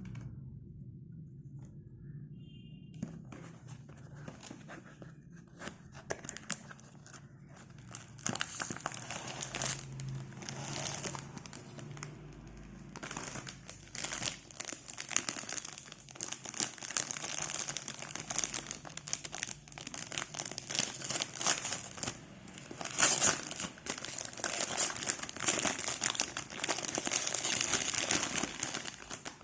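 Packaging of a rolled desk-mat mouse pad being crinkled and torn open by hand. Scattered crackles start a few seconds in and become louder and busier from about eight seconds on.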